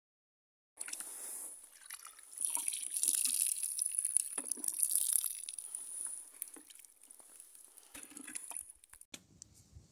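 Water poured into a plant pot heaped with snow over soil, splashing and trickling as it soaks in and runs over the rim. It starts about a second in, is loudest in the middle and tapers off near the end.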